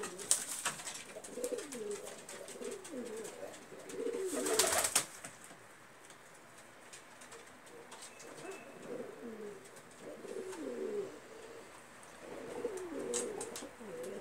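Domestic pigeons cooing over and over, one low gliding coo after another. A short louder rustle comes about four and a half seconds in.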